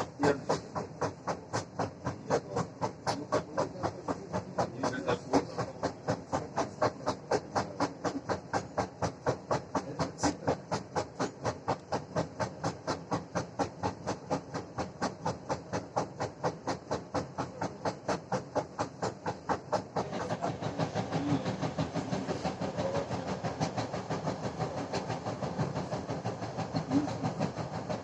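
A large wheel flat on a badly worn ED4M electric train car knocks loudly against the rail once per wheel turn, a steady beat of about two to three knocks a second. About two-thirds of the way through, the sound becomes denser and the individual knocks are harder to pick out.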